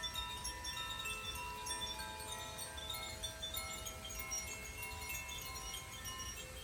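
Tuned wind chimes being played, many overlapping bell-like tones ringing on and fading into each other with no break.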